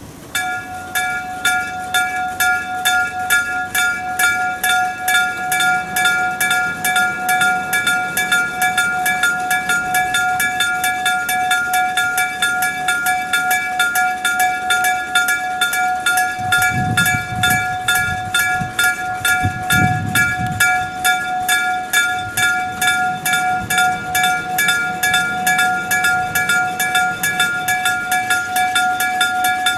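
Electric-bell level crossing alarm: a motor-driven striker hammers an aluminium-alloy bell in rapid, evenly spaced strokes, each stroke ringing with a clear metallic tone. It starts suddenly just after the beginning and runs on steadily, the crossing's warning that a train is approaching.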